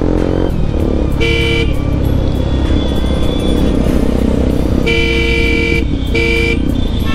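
A two-tone vehicle horn honks three times, short, then longer, then short, over the steady low rumble of a motorcycle riding in traffic.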